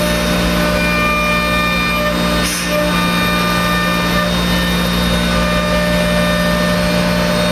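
5-axis CNC router spindle running at speed while its cutter mills a block: a steady machine whine of several held tones over a hiss of cutting. The sound dips briefly about two and a half seconds in.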